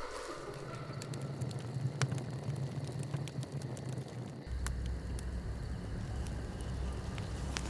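Fire burning, with a few sharp crackles, over a low steady rumble that drops deeper about halfway through.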